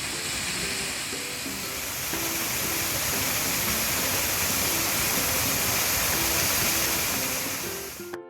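Waterfall rushing in a steady, dense roar of water, growing louder about two seconds in and cutting off abruptly near the end, with soft plucked-string background music underneath.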